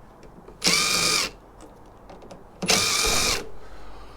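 Electric drill-driver running in two short bursts about two seconds apart, each about two-thirds of a second long, its motor whine rising as it spins up: screws being driven out of the server's casing.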